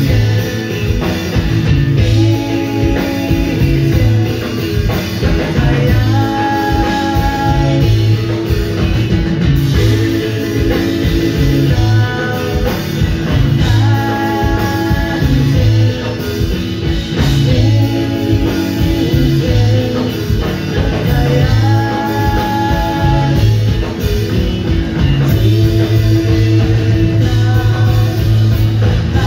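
Math-rock trio playing live: electric guitar phrases over a moving electric bass line and drum kit, heard loud from within the audience.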